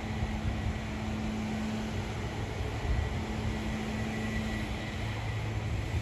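Beach-cleaning tractor towing a sand rake, its engine running steadily with a low, even hum.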